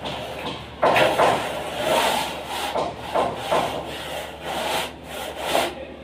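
A plastering tool scraping and rubbing across cement plaster on a wall in an irregular run of strokes.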